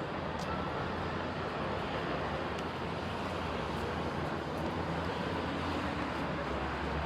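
Street traffic noise: a steady low engine hum over a general city roar, with no single event standing out.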